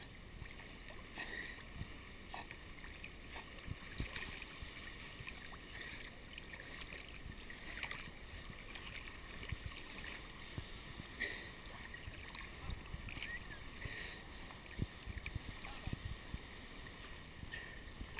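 Sea water sloshing and splashing around a camera held at the surface while a dog and a person swim, with irregular small knocks and splashes throughout.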